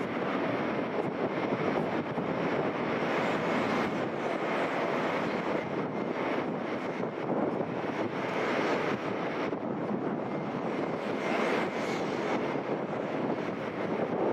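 Boeing 737-800 CFM56-7B jet engines running, a steady rush with a faint high whine.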